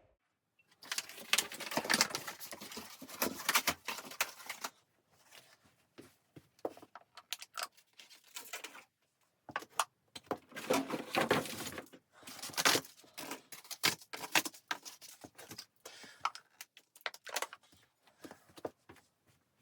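Close-up crackling, crinkling and clicking handling noises in two dense spells, with scattered clicks between them.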